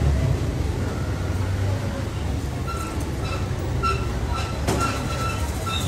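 Steady low rumble and noise of a busy street-food stall. In the second half a faint, short high beep repeats roughly twice a second.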